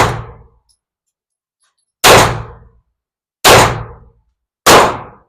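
Four shots from a Springfield Armory Echelon compact 9mm pistol, each a sharp crack with a short ringing tail. The first comes right at the start, then three more about two, three and a half and nearly five seconds in.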